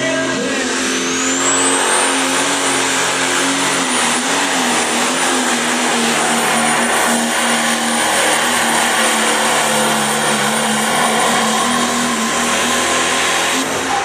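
Competition pulling vehicle's engine running hard at full throttle through a pull. A high whine rises over the first two seconds and then holds, and the sound cuts off just before the end.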